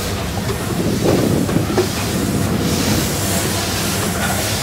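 Steady low rumble of a steamship's twin steam engines and machinery, pretty noisy, with wind and lake water in the background.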